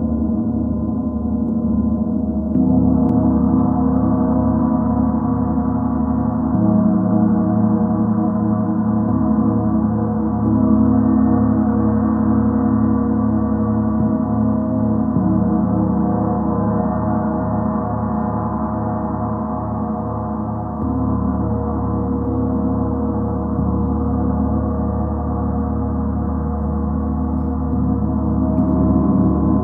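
Chiron gong, a large tuned planetary gong, played with a mallet: one unbroken wash of many steady overtones with a slow pulsing in the low notes. It swells louder three times, about 3, 10 and 21 seconds in, as it is played again.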